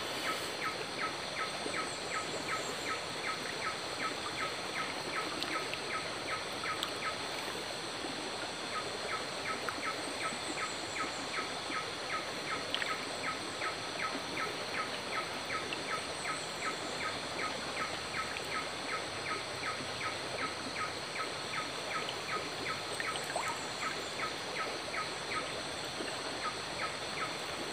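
Forest wildlife: a short high call repeated about four times a second, breaking off briefly about seven seconds in and then resuming, over a steady high-pitched insect drone.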